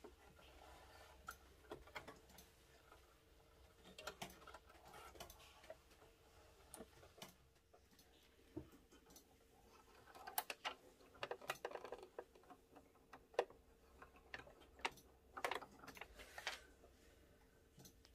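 Faint scattered clicks and taps of hands threading a Singer sewing machine, handling the thread and the machine's plastic parts. The clicks come closer together in the second half as the needle is threaded.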